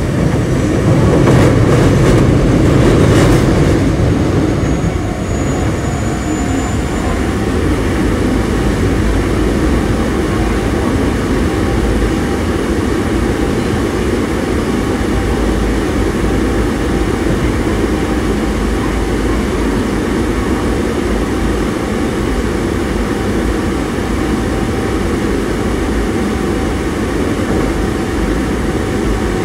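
Osaka Metro 22 series subway train heard from inside the car while running between stations: a steady rumble of wheels on rail and traction motors, with a louder clattering stretch in the first few seconds.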